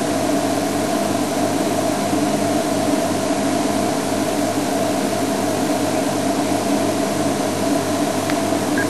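Safari game-drive vehicle's engine idling steadily, a constant low hum with a hiss over it.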